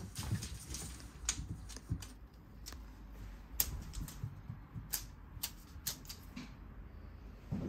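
A cat scrambling after a feather wand toy on a wooden floor: irregular sharp clicks of claws and the toy on the boards, with light thuds of paws.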